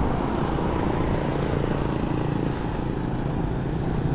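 Road traffic going by: a steady rumble of cars and motorbikes. Near the end a motorbike engine comes closer.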